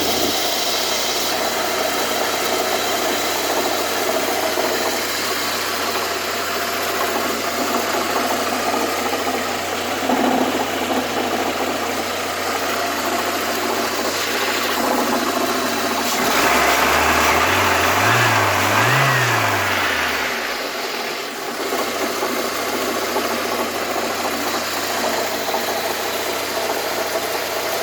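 Lada Priora 16-valve engine idling with a knock whose cause the owner cannot identify. About two-thirds of the way through it is revved up twice in quick succession, then drops back to idle.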